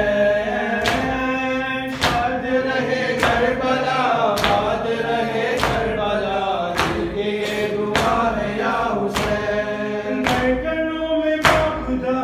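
A male voice chanting a noha (mourning lament) into a microphone. Sharp chest-beating slaps of matam land in time with it, about one every second and a quarter.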